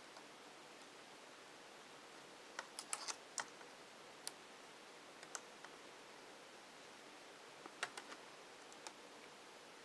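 Scattered small plastic clicks and taps from a laptop keyboard being handled while its ribbon cable is fitted into the connector. There is a quick cluster of clicks about three seconds in and another near eight seconds, over faint room hiss.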